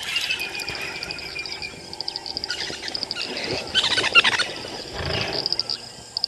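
Wild animal sounds in the bush: a steady, evenly pulsed high chirping throughout, a falling call in the first two seconds, and a louder harsh call about four seconds in.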